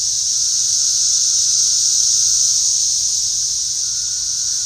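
A loud chorus of cicadas, a steady high-pitched droning whir without a break, likened to a flying saucer.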